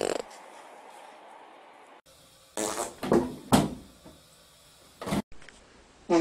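A series of short fart noises. One comes right at the start, then three follow close together from about two and a half to nearly four seconds in, and a sharp one comes near five seconds.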